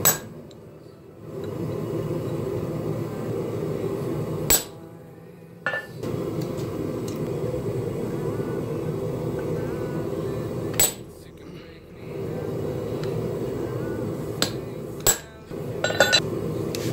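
Hand hammer striking a ball punch held on red-hot steel on an anvil: sharp metallic strikes several seconds apart, then a quick run of strikes near the end. A steady low hum runs underneath.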